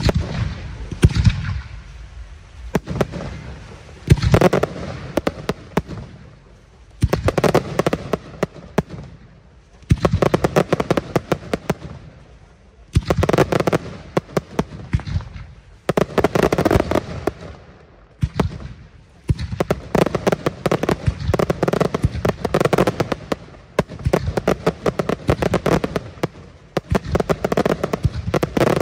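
Aerial firework shells bursting one after another, with dense rapid crackling in waves every few seconds, becoming almost continuous over the last third.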